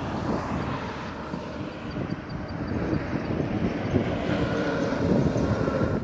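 Wind buffeting the microphone: an uneven low rumble that rises and falls.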